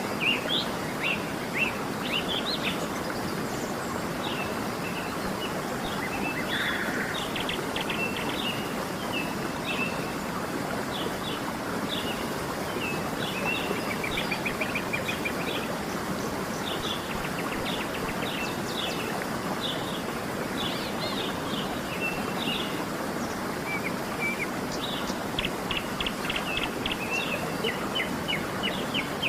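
Steady rushing of a waterfall, with birds chirping in many short, high calls over it.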